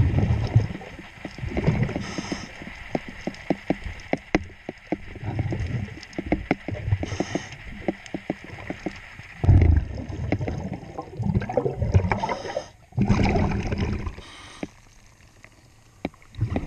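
A scuba diver breathing through a regulator underwater: short hisses on each inhale and rumbling bubble bursts on each exhale, repeating every few seconds. Many sharp, irregular clicks and knocks come from tools and hands working on the propeller and its nut.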